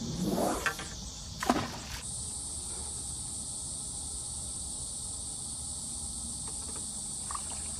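Insects droning steadily in a high pitch, with a brief rising swish in the first second and a short sharp click about a second and a half in.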